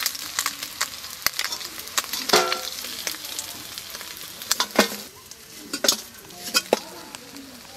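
Small fish sizzling in hot mustard oil in a steel kadai, the hiss thinning out as the fried fish are lifted out. A metal spatula scrapes and clinks against the pan and a steel plate.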